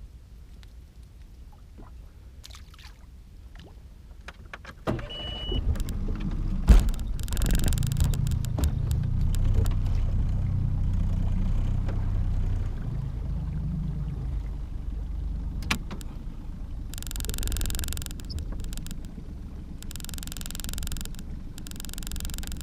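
A small motor on a fishing boat starts about five seconds in with a short high beep and then runs with a steady low hum. Hissy rushes of noise come and go near the end.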